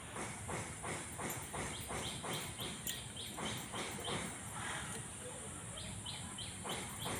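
A raw vegetable being sliced on a boti, a fixed upright curved blade: a steady run of short cutting strokes, about three a second.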